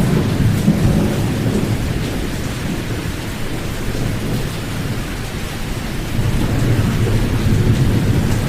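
Pink noise with the high frequencies filtered out, played as a sleep sound: a deep, even hiss weighted to the low end. It eases in level a couple of seconds in and builds again near the end.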